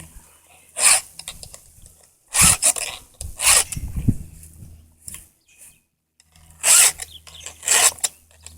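Round chainsaw file rasping across the cutters of a chainsaw chain in separate push strokes, about five in all.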